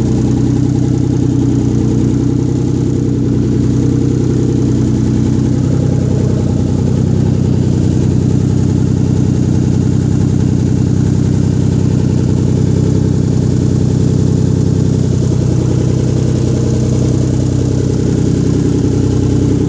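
Freshly rebuilt Mitsubishi 3000GT VR4's twin-turbo 6G72 V6 idling steadily and loudly. With no downpipe fitted, the exhaust note is raw and rough.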